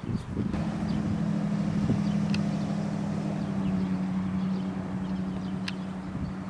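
An engine running steadily, an even low drone that sets in about half a second in and holds level.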